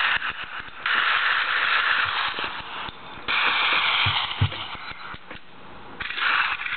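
Simulated gun sound effects from the iGun Pro app played through the iPod touch's small built-in speaker, sounding thin and tinny. They come in long rattling bursts of up to about two seconds each, separated by short gaps.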